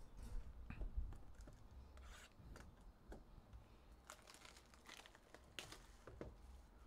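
Hands tearing open a sealed Panini Contenders football hobby box: wrapping crinkling and cardboard tearing and rubbing in faint, short, scattered rasps and taps.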